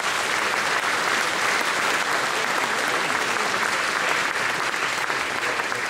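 Large audience clapping steadily: sustained applause from a hall full of people.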